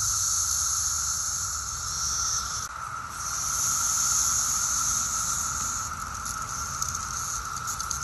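Chorus of periodical cicadas: a steady, loud, high-pitched droning from many insects, with a lower steady buzz underneath. It dips briefly about three seconds in.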